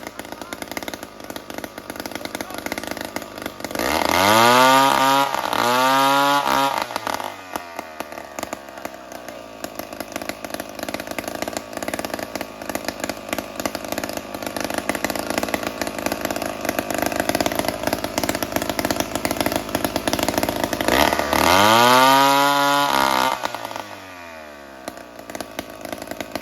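Chainsaw engine running throughout, its throttle opened and eased off twice in quick succession about four seconds in, then once more near the end, pitch rising and falling each time.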